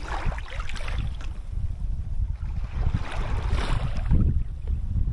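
Kayak paddle strokes splashing through sea water, two splashy surges about three seconds apart, over a steady low rumble of wind on the microphone.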